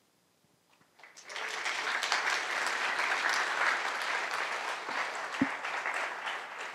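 Audience applauding, starting about a second in and tapering off near the end, with a single low thump partway through.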